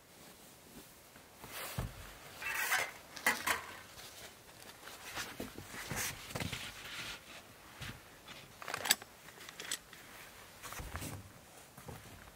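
Camping gear being handled by hand: irregular light knocks, clicks and rustles, with a few sharper clacks now and then.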